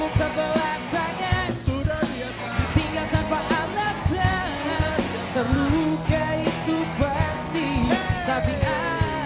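Live pop-rock band playing: a male lead vocal sung over acoustic guitar, electric guitar, bass and a steady drum beat.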